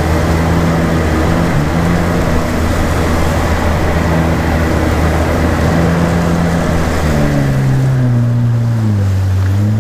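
A 2018 Yamaha GP1800 jet ski's supercharged engine runs steadily under throttle, with water rushing and spraying past the hull as it turns in circles. About seven seconds in, the engine note falls as the throttle is eased off.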